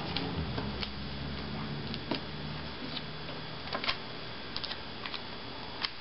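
Light, irregular clicks and taps from fingers and fingernails pressing strips of sticky tape and tracing paper down onto a rubber carving block, some of the clicks coming in quick pairs.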